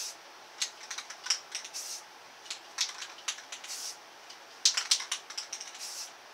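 Aerosol spray-paint can spraying in short spurts, in three bunches of quick hisses and clicks, each bunch ending in a slightly longer hiss.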